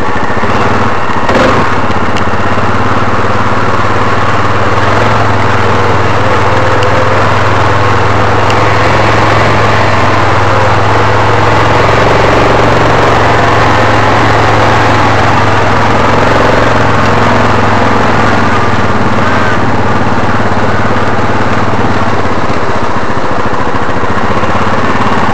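ATV engine running steadily in low-range gear as the quad wades slowly through flood water, a constant loud drone.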